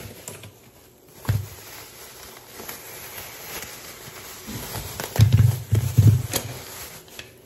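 Thin plastic produce bag crinkling and rustling as potatoes are pulled out of it, with a knock about a second in and a few loud dull thumps about five to six seconds in as a potato is handled and set on a plastic cutting board.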